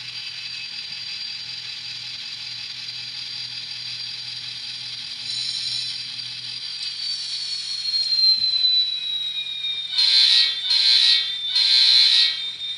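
Sound decoder in an N scale SD70 playing diesel locomotive sound through a tiny 10 mm speaker. The engine sound runs steadily with a high whine that slowly falls in pitch. It ends with three horn blasts about a second apart near the end.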